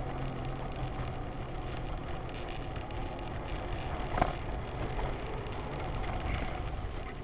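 Steady engine and tyre noise inside a moving car, with one short sharp click about four seconds in.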